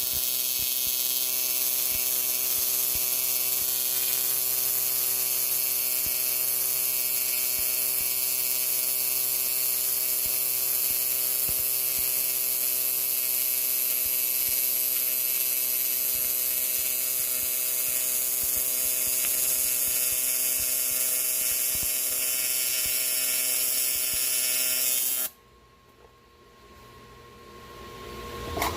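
Welding arc on aluminum flanges, a steady buzz with a high hiss over it, held for one long continuous bead. It cuts off suddenly about 25 seconds in.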